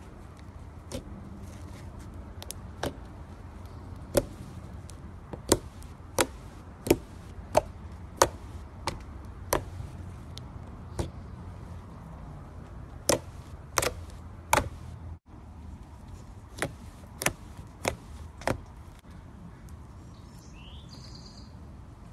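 Slime being squeezed and stretched by hand, with trapped air popping out in sharp clicks, roughly one or two a second at uneven spacing, over a low steady hum.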